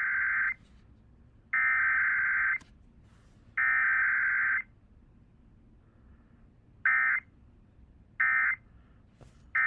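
Emergency Alert System SAME digital data tones, shrill buzzing bursts: three roughly one-second header bursts about a second apart, then three short end-of-message bursts about a second and a half apart, the last cut off at the end.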